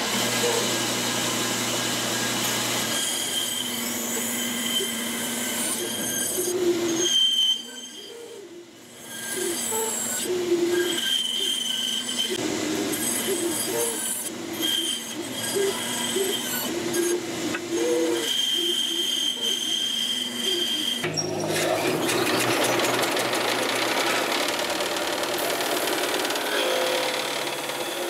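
Bandsaw cutting through a thick wooden block, the blade running with shifting squealing tones as it cuts, with a short quieter lull about seven seconds in. About 21 seconds in it changes to the steady grinding of a disc sander as a wooden piece is pressed against the disc.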